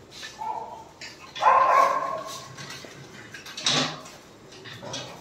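Dogs barking: four separate barks, the loudest and longest, a drawn-out bark about a second and a half in, and a sharp short bark near four seconds.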